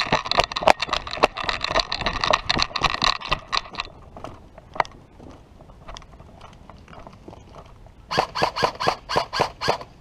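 Footsteps crunching on gravelly dirt with gear rattling, then a quick string of about eight sharp clacks near the end: rapid shots from a G&G M4 airsoft rifle.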